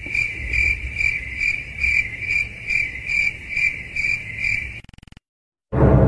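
Crickets chirping in an even pulse of a little over two chirps a second, cutting off about five seconds in.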